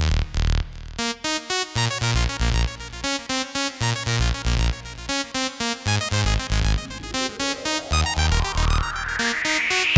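Electronic dance music with a steady beat and synthesizer notes, with a rising sweep building over the last few seconds.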